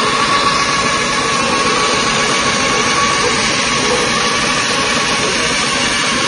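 Stainless-steel soybean dehulling machine for tempeh running steadily: a constant mechanical noise with a steady whine on top.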